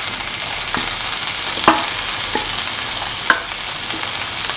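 Cooked mung beans sizzling in hot oil in a pan with sautéed onions and shallots, a steady hiss, with a few short clinks against the pan as they are stirred.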